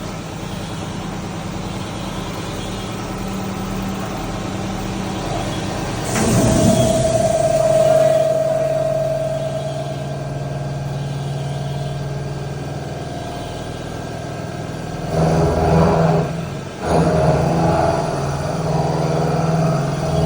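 CNC machine running, with a steady whine that swells about six seconds in and grows louder and rougher from about fifteen seconds.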